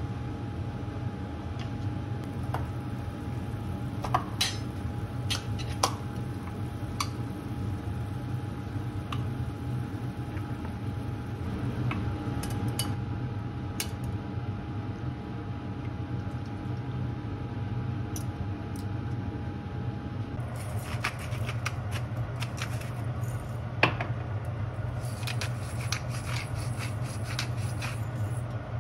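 Clinks and taps of a utensil against a glass bowl and a stainless steel pan as udon noodles and fish cake go into the broth, over a steady low kitchen hum. A faint steady tone in the background stops about two-thirds of the way through, after which the clinks come more often.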